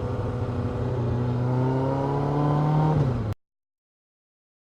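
Suzuki Katana 750's inline-four engine running as the motorcycle rides along, its pitch climbing steadily in the middle as the bike accelerates, then dropping briefly near the end before the sound cuts off abruptly.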